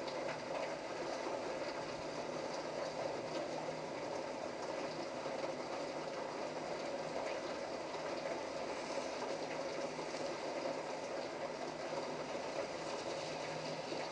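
Steady heavy rain falling: an even rushing noise with scattered drop ticks.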